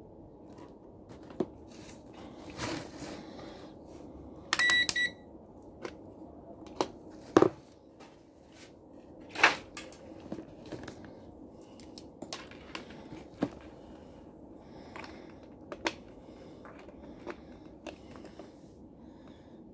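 Handling noise from a digital multimeter and its test leads being picked up and moved: scattered clicks and knocks, the two sharpest about seven and a half and nine and a half seconds in. About four and a half seconds in there is a half-second electronic beep.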